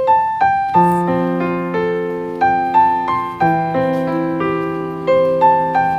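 Background piano music: single notes and chords struck at an unhurried pace over held bass notes, each note left to ring and fade.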